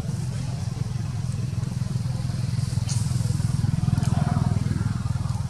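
Steady low rumble of an idling engine, with a brief higher-pitched monkey call about four seconds in.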